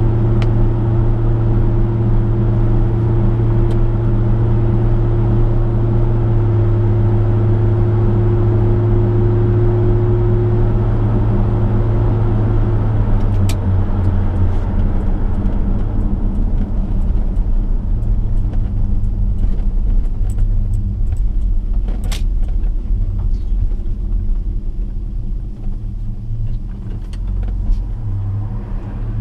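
1967 Chevrolet V8 car running at road speed, heard from the car: a steady low engine drone with road and wind noise. About halfway through the higher engine tone drops out and the road noise eases as the car slows, with a few light clicks.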